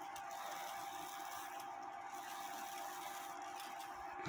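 Faint, steady whirring with a constant low hum from a Regula 701 cuckoo clock movement, its lift lock lever lifted and the train running before the cuckoo call.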